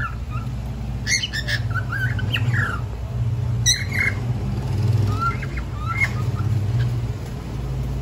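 Cockatiel calling in short bouts: a harsh squawk about a second in and another near four seconds, with quick rising and falling chirps between and softer chirps around five to six seconds. A steady low hum runs underneath.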